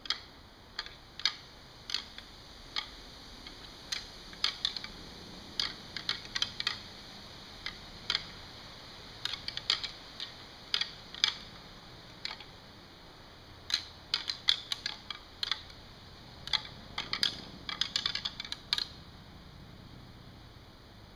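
A pair of rattling antlers ticked and lightly ground together in short, irregular clicks, some single and some in quick clusters: soft early-season rattling that imitates two bucks sparring. The clicking stops a couple of seconds before the end.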